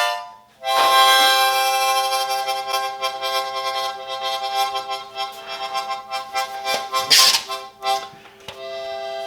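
Harmonica blown in long, wavering chords, with a short break near the start and a harsh breathy blast about seven seconds in: pain voiced through the harmonica in place of cries.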